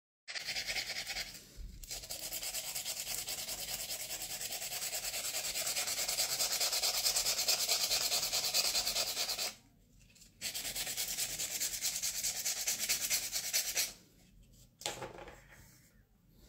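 Sandpaper rubbed back and forth over the rim of a glazed ceramic mug in fast, even scrubbing strokes. It stops briefly near the middle, resumes, then dies down to a few faint rubs near the end.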